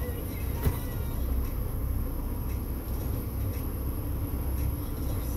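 Mack Titan's 525 hp diesel engine running with a steady low rumble, heard from inside the cab as the truck moves slowly, with one sharp click under a second in.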